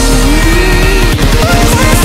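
Loud electronic music with a gliding synth melody; about halfway through, a quick run of repeated falling bass sweeps starts.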